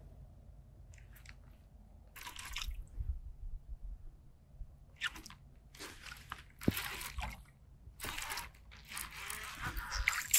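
Several short bursts of rustling and scraping from hands and jacket sleeves working a baitcasting rod and reel close to the microphone, with a sharp click about two-thirds of the way in.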